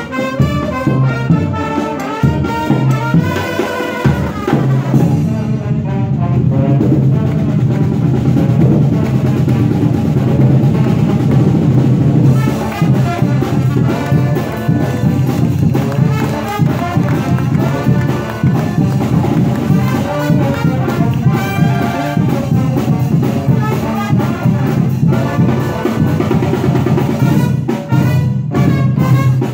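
Brass street band playing live: trumpets, trombones and saxophones with a clarinet, over snare drums and a bass drum keeping a steady beat.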